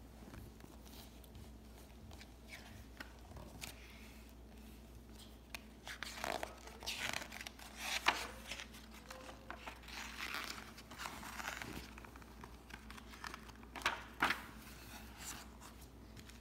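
Pages of a hardcover picture book being handled and turned: scattered soft paper rustles and swishes, busiest in the middle, with a couple of sharper taps near the end.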